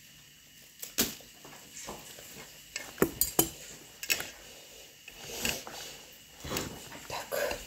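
Kitchenware clinking and knocking while food is being handled: a series of separate sharp clinks and taps, a quick cluster of three about three seconds in.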